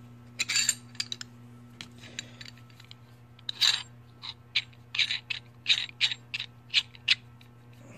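Metal hand tools being worked: a wrench and ratchet handle clicking and scraping against each other in a run of short, irregular strokes, most of them packed into the second half. A steady low hum runs underneath.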